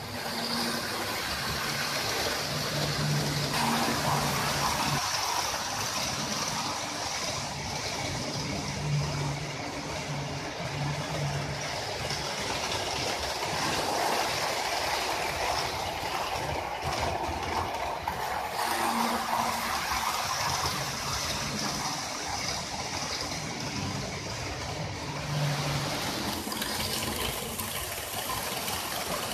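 Model trains running on a layout: a model electric locomotive's motor and the coaches' wheels make a steady whirring rattle along the track as they pass close by, with a low motor hum that comes and goes.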